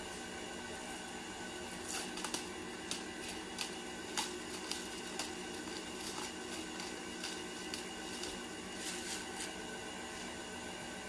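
1980s Oster Regency Kitchen Center stand mixer running steadily, its beaters mashing boiled potatoes in a glass bowl, with a steady motor hum and irregular clicks and ticks through the middle.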